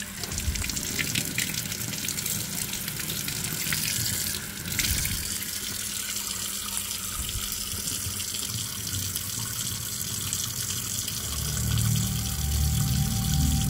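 Tap water running steadily into a stainless steel sink while a coin is rinsed under it by hand. Music comes in about three-quarters of the way through and grows louder.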